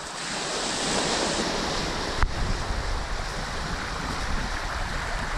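Small waves breaking and washing over a pebble beach, a steady hiss of surf. A single sharp click comes a little over two seconds in, and wind rumbles on the microphone from then on.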